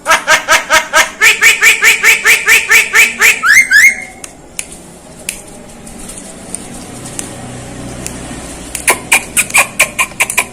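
Javan myna calling in a fast run of repeated notes, about four or five a second for roughly four seconds, ending in quick rising notes; a second, shorter run of the same notes comes about nine seconds in.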